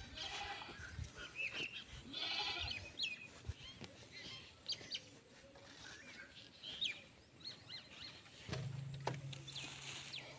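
A farm animal bleating twice, a short wavering call each time, with small birds chirping throughout. A low steady hum comes in near the end.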